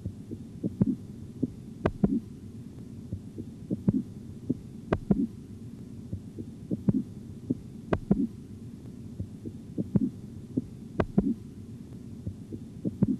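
Korotkoff sounds heard through a stethoscope during auscultatory blood-pressure measurement: soft thudding tones with some sharp clicks over a steady low rumble. This is the onset of the tones that marks systolic pressure, here 148 mmHg. The same short passage repeats about every three seconds, four times over.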